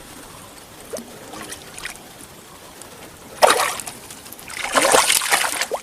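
Water splashing in two bursts, a short one about three and a half seconds in and a longer one about a second later: a hooked fish thrashing at the surface as it is reeled in.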